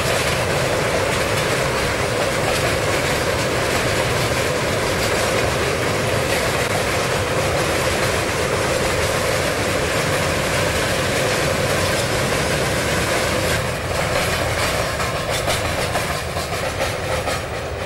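Freight train wagons rolling past with a steady rumble and rail noise. From about two-thirds of the way in, the wheel clatter becomes more uneven and distinct as the last wagons and the brake van go by.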